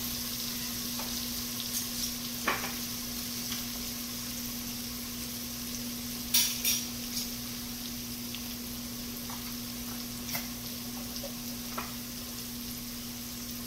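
Shallots and garlic sizzling steadily in oil in an enamelled cast-iron Dutch oven, over a steady low hum. A few light clicks and knocks as jars and cans are handled, the loudest a pair about six seconds in.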